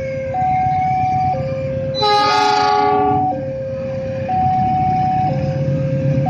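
Railway level-crossing warning signal sounding a two-tone alarm, switching between a low and a high tone about once a second. About two seconds in, a train horn blasts for just over a second over a steady low rumble.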